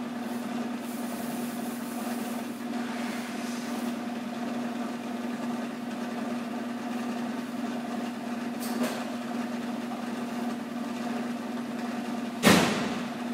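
A steady mechanical hum from the Maxima's engine bay, holding one even pitch. A single loud bang or slam comes near the end.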